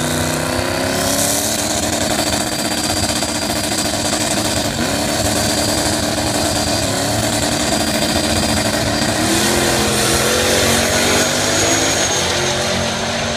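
Two drag cars' engines running loudly while staged at the start line, with a steady high whine over them. About nine seconds in, they launch and run hard down the track, pitch rising.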